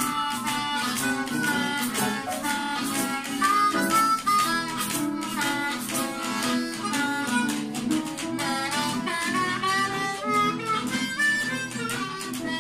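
Blues harmonica played with cupped hands: a melody of notes that slide and bend in pitch over steady chording lower down.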